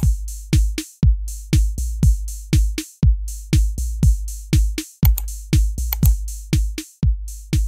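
Background electronic music with a steady drum-machine beat over deep bass.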